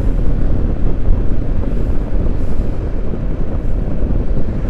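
Loud, steady wind rumble on the microphone of a helmet-height camera, from air deflected off a Yamaha XMAX 250 scooter's tall stock windscreen at about 50 km/h, masking the scooter's engine.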